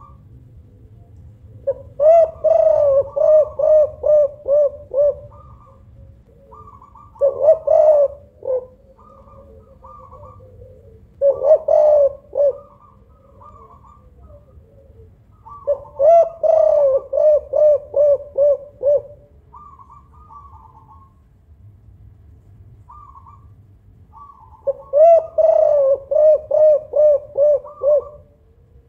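Spotted dove (tekukur) cooing loudly in five bouts, each a quick run of repeated coos lasting one to four seconds. Fainter, higher calls sound in the gaps between the bouts.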